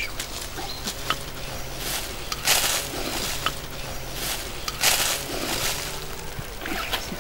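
A clay cooking pot of lamb stew gripped in a cloth and tipped out into an enamel bowl, with the broth sloshing and splattering into the bowl. Several short bursts of cloth rustling, two of them loudest, and small clinks of the pot.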